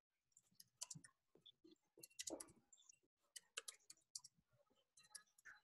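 Faint typing on a computer keyboard: irregular key clicks, several a second, as a chat message is written.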